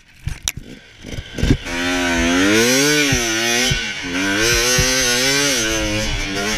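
Two-stroke motocross bike engine: after about a second and a half of scattered knocks, it revs up and down in long, smooth swells of throttle. A steady rush of wind on the microphone runs over it.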